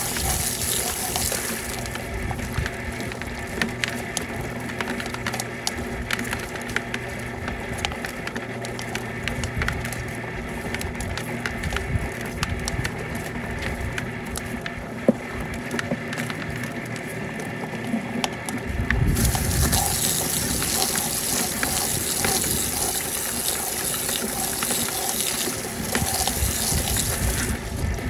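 Homemade bucket quail plucker running: the old garage door opener motor hums steadily while the scalded quail tumbles against the rubber plucker fingers, giving scattered light knocks. A garden hose sprays water into the bucket in the first second and again from about two-thirds of the way in until just before the end.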